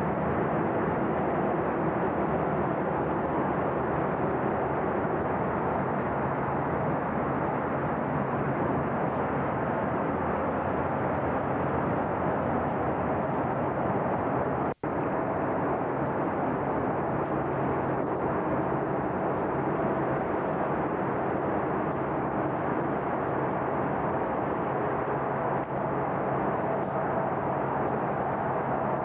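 Steady rushing drone with a faint underlying hum on board a boat under way on the river, typical of engine and wind noise on a camcorder. The sound drops out for an instant about halfway through.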